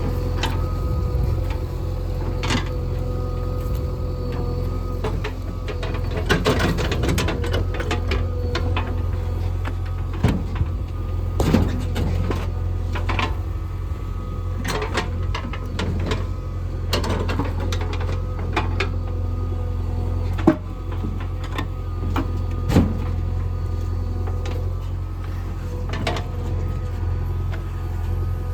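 JCB 3DX backhoe loader's diesel engine running steadily under load, with scattered knocks and clanks of stones and the steel bucket as stones are loaded into a tractor trolley.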